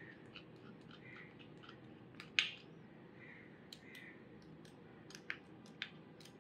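Small spoon scraping and clicking against a white dish as sugar is pushed off it into a small bowl: soft scrapes and scattered light ticks, with one sharper click about two and a half seconds in.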